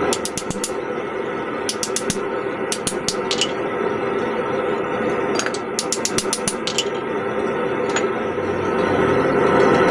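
Blacksmith's hammer striking hot steel on an anvil in quick runs of four to six light, sharp blows, with pauses between the runs, over a steady background noise.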